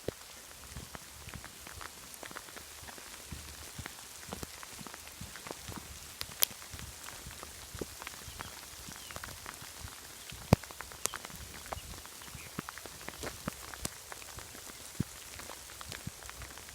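Light rain falling in woodland: a steady hiss with many scattered drops tapping, and two sharper, louder taps about six and ten seconds in.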